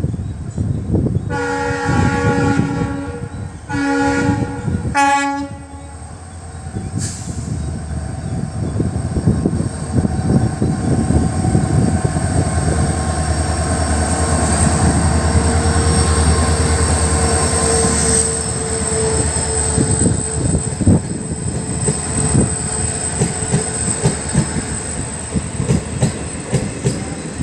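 WDP-4D diesel locomotive horn sounding three blasts: two of about a second and a half each, then a short wavering one. After the horn, a slow-moving train's wheels clack steadily over rail joints, with a low steady hum underneath.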